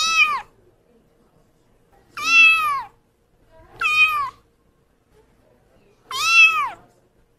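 Kitten meowing four times, about one meow every two seconds. Each meow rises a little and then falls away.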